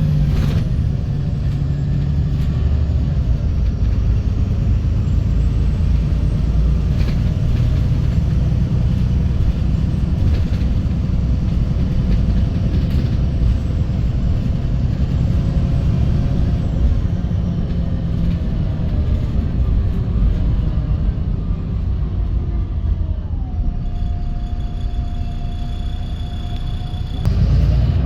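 VDL SB200 Wright Pulsar 2 single-deck bus heard from inside while under way: the engine and drivetrain run with a steady low rumble, its pitch rising and falling as the bus changes speed. About three quarters of the way through a steady high whine sets in, and near the end the engine gets louder.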